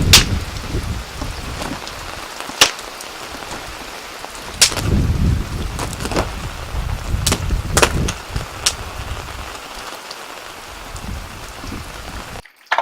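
Wood campfire crackling, with sharp pops every second or so over a steady hiss and low rumbling swells; it cuts off suddenly near the end.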